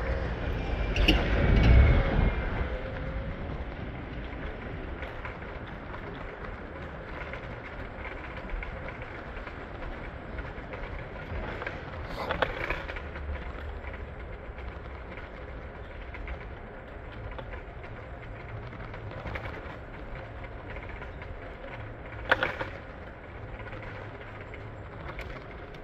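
City street traffic: a vehicle passes loudly with a low rumble about two seconds in, then a steady traffic hum, with a sharp knock around the middle and another near the end.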